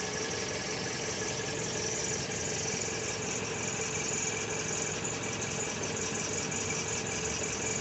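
2013 Mazda 6 engine running steadily, with a steady squeak that sounds like a belt squeak but comes from behind and under the engine.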